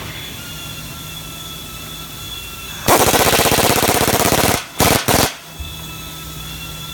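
Pneumatic impact wrench rattling in one burst of about a second and a half, then two short bursts, fastening the floor panel to the home's steel chassis frame. A steady factory hum lies underneath.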